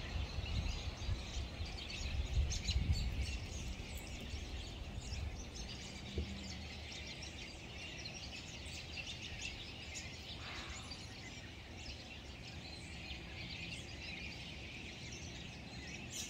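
Many small songbirds chirping and calling all around in a dense, steady chorus. A low rumble sits under the chirps for the first few seconds.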